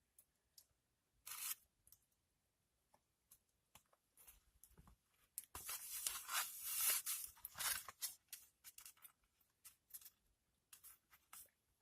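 Rustling, crinkling handling noise with scattered light clicks and taps, loudest in a dense stretch a little past halfway.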